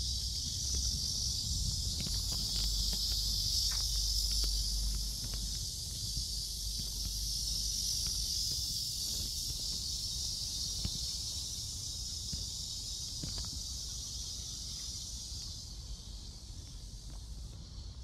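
A chorus of cicadas shrilling as a steady, high, continuous buzz, easing off somewhat near the end.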